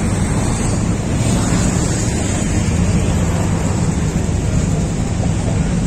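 Wind buffeting the microphone over the steady low drone of passenger ferries' diesel engines close by, with water churning.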